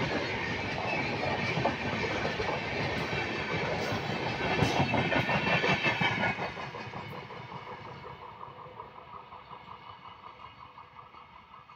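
Passenger train coaches rolling past at close range, wheels clattering over rail joints over a dense rolling rumble. About six seconds in the sound drops away abruptly, leaving the train's clatter fading steadily as it moves off into the distance.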